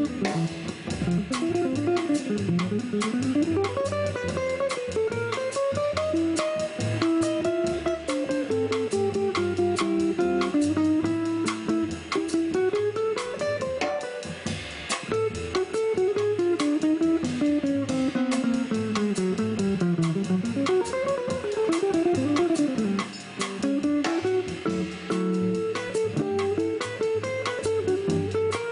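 Small jazz group playing: a hollow-body archtop guitar, an upright double bass and a drum kit keeping time on the cymbal, steady and unbroken.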